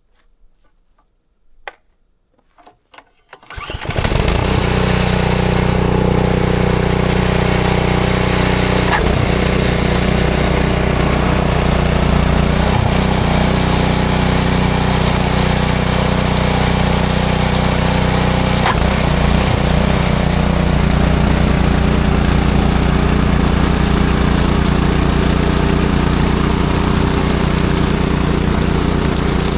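A few clicks, then about four seconds in a snowblower's small engine starts and runs steadily and loudly.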